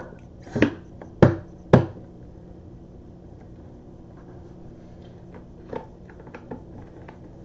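Three sharp knocks about half a second apart, then a few light clicks and taps later on, over a low steady hum.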